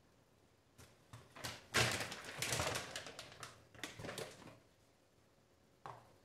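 Large plastic pouch of dextrose powder rustling and crinkling as it is handled and set down on a kitchen counter, after a few light clicks, with a short knock near the end.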